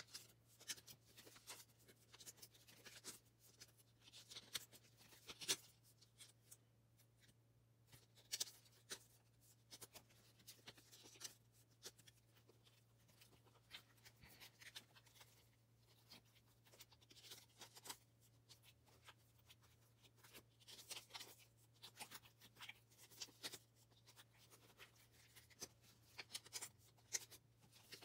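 Faint rustling and crinkling of thin plastic card sleeves as photocards are slid into them and handled, with many small scattered clicks and taps. A low steady hum runs underneath.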